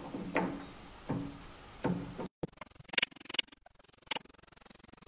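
Steel soft jaw knocking against a lathe's three-jaw chuck as it is fitted by hand: three or four metallic clunks, each with a short ring. After a brief break come a few sharp clicks of a driver working the jaw's mounting screw.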